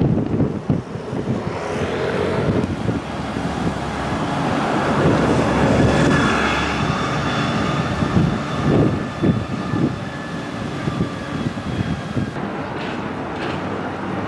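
Buses running along a city street: the low engine rumble of a double-decker diesel bus driving away, with a whine above it in the middle stretch and general traffic noise.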